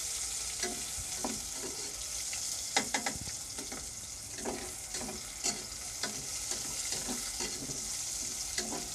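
Garlic, onion and pork sizzling as they sauté in a stainless steel pot, while a metal spatula stirs and scrapes through them with a few sharp clinks against the pot.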